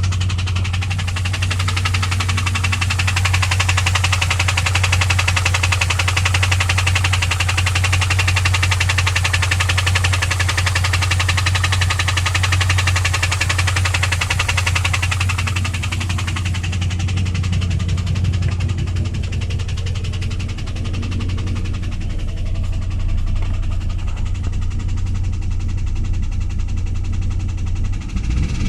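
A 2001 WS6's LS1 5.7L V8 running with a fast, steady ticking knock over its hum, a noise that appeared after the engine ran out of oil, lost oil pressure and was refilled. The sound turns a little duller and quieter about halfway through.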